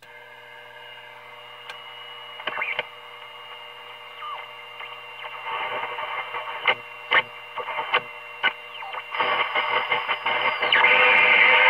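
Loudspeaker of a 1932 Tiffany Tone tuned radio frequency set, tuned across the band on an outside antenna: steady hum with whistle tones and crackles of static, a whistle falling in pitch, and a station coming in louder near the end.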